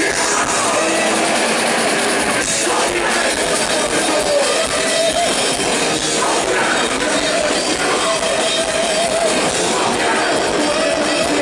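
Heavy metal band playing live: distorted guitars and a drum kit under a wavering melody line, recorded from the audience with a thin, bass-light sound.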